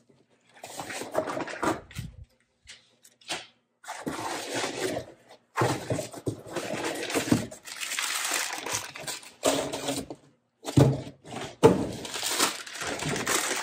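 Rummaging in a cardboard shipping box, rustling and crinkling brown packing paper in irregular bursts with short pauses between them.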